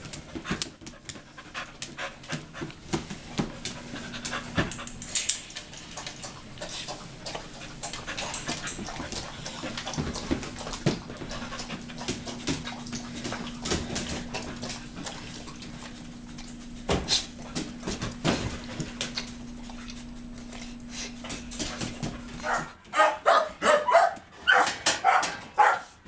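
Keeshond dogs panting in wire kennel cages, with many short clicks and rattles and a steady hum underneath. Near the end a dog barks rapidly, several times.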